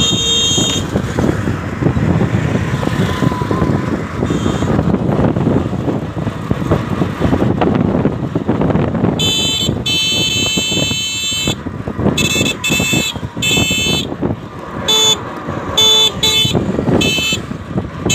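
Busy road traffic with a steady background of engines and noise, and vehicle horns honking: a short blast at the start, one long blast about nine seconds in, then a string of short toots.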